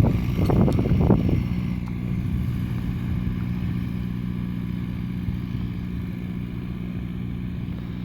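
Cessna 172's piston engine and propeller running with a steady low drone that slowly grows fainter.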